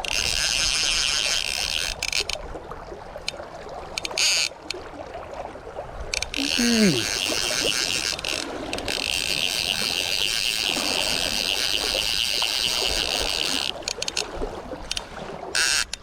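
Hardy Marquis Salmon fly reel screaming as a hooked steelhead runs and pulls line off against the drag, in three long runs with short spurts between.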